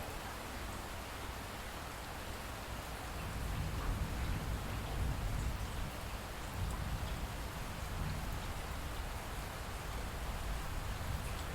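Light rain falling after a thunderstorm, a steady hiss with scattered drips. A low rumble grows louder about three seconds in and stays.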